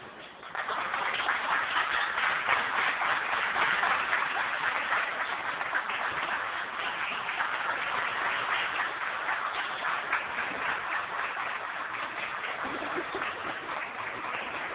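Audience applauding, starting about half a second in and slowly fading.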